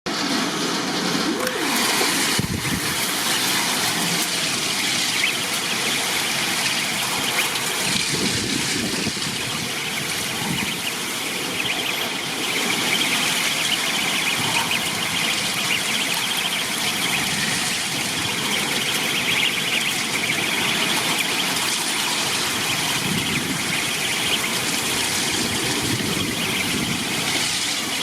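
Storm wind and heavy rain: a loud, steady rushing noise with no break.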